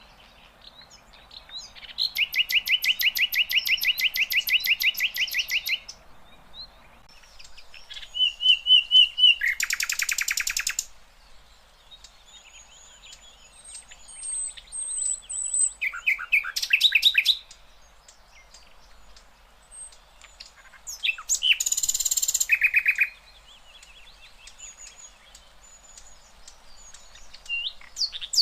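A sikatan londo flycatcher singing in loud, separate bursts: a fast run of repeated notes lasting about four seconds, rapid trilled phrases and two short harsh, buzzy bursts, with soft chirps in the pauses between them.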